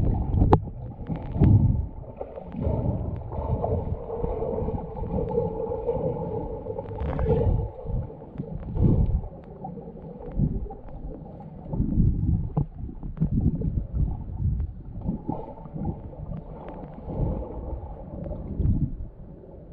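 Muffled, irregular water sloshing and gurgling with low thumps, swelling and ebbing every second or two.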